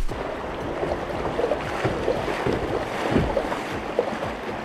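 Rushing river water splashing around a kayak running through a rapid, with wind buffeting the microphone.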